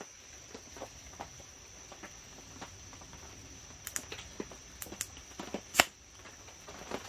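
A small plastic UCO LED lantern handled in the hands: scattered light taps and rustles, then a sharp click just before six seconds as its button is pressed and the lantern lights.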